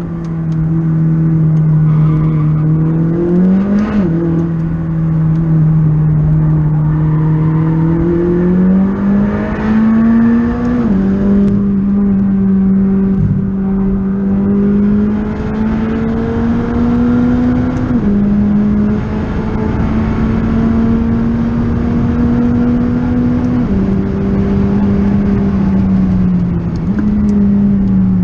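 McLaren 600LT's twin-turbo V8 heard from inside the cabin while driven hard on track. The engine note climbs slowly in pitch under acceleration and drops abruptly at each upshift, several times, with one step up in pitch near the end.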